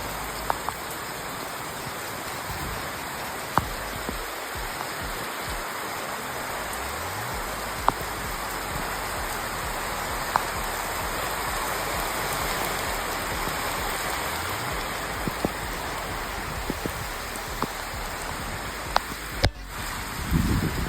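Steady rainfall, an even hiss, with a sharper drop or tap now and then.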